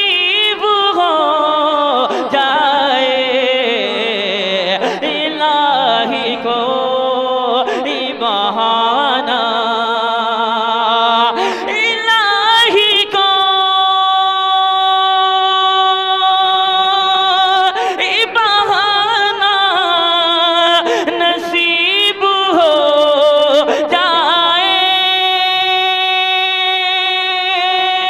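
A man singing a naat without instruments. He draws the line out in long melismatic runs that slide up and down in pitch. About halfway through and again near the end he holds long steady notes.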